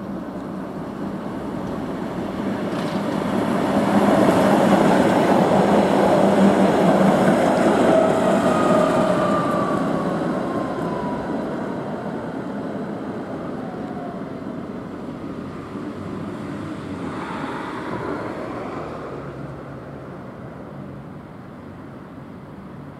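Tatra KT8D5 articulated tram running past on street track, its running noise rising to a peak and then fading away. A high whine glides down in pitch midway, and there is a brief squeal near the end.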